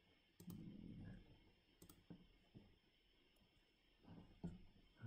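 Faint computer mouse clicks, several sharp clicks, some in close pairs, over quiet room tone, with a soft low sound about half a second in that lasts under a second.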